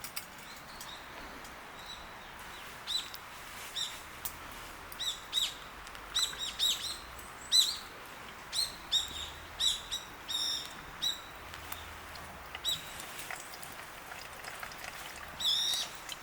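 Birds chirping: a run of short, sharp calls repeated in quick clusters over a faint steady background hiss.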